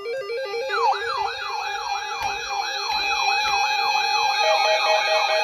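Several electronic sirens sound together, starting abruptly. One yelps, sweeping up and down about three times a second, while a lower two-tone siren steps quickly between two pitches, over steady tones and a fast warble higher up.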